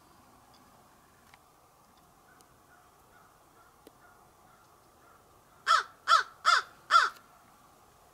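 A crow cawing four times in quick succession, about a second and a half in all.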